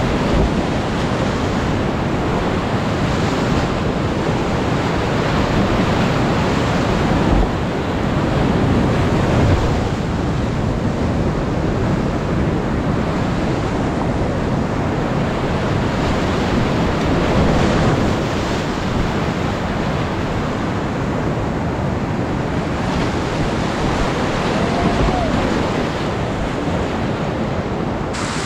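High-water whitewater rapids of the South Platte River rushing loudly and steadily, heard from a kayak in the middle of the rapid, with a few brief low thumps of water hitting the boat or camera.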